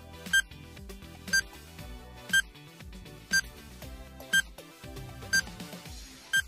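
Quiz countdown timer sounding a short, high beep once a second, seven times, over background music.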